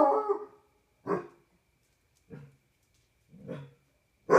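Basset hound barking and howling in separate calls: a loud howl trailing off at the start, a short bark about a second in, two fainter low calls, and another loud howl starting at the very end.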